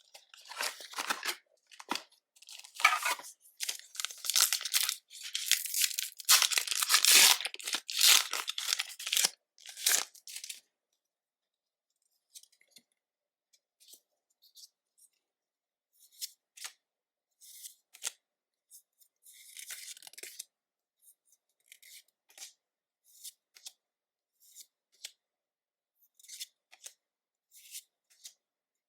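Foil booster pack wrapper being torn open and crinkled for about the first ten seconds, then only faint scattered clicks and short rustles as the Pokémon cards are handled.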